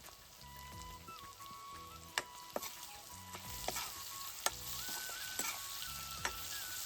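Food sizzling in a hot pan while it is stirred, with several sharp knocks of the utensil against the pan. The sizzle grows stronger about halfway through.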